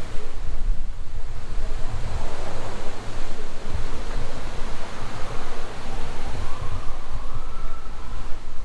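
Ford Maverick pickup with its 2.0-litre EcoBoost turbo four driving on the road: a low, steady rumble of engine and tyres under heavy wind and road noise on the microphone. A faint whine rises about six seconds in.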